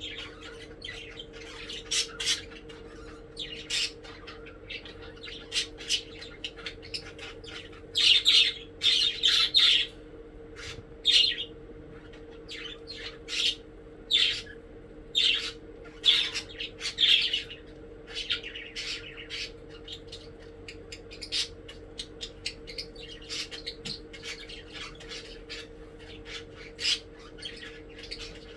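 Several pet budgies chirping and squawking in short, rapid calls, with louder chattering flurries about a third and halfway in. A faint steady low hum runs underneath.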